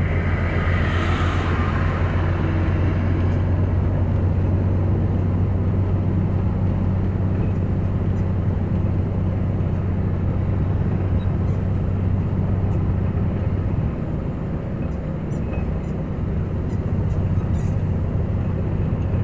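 Inside a vehicle's cab driving through heavy rain at night: a steady low engine drone with a continuous hiss of rain and wet road. A brief swell of spray hiss comes about a second in, with faint scattered ticks.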